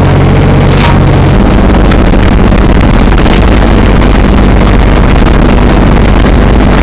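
Hitachi 30Z mini excavator's diesel engine running loud, heard from inside the cab. About a second and a half in, the steady engine note gives way to a rougher, heavier sound as the machine travels on its tracks.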